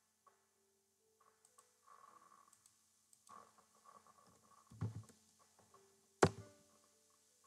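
Scattered taps on a computer keyboard and clicks, with a duller knock a little before five seconds in and one sharp, louder click about six seconds in. A faint steady hum lies underneath.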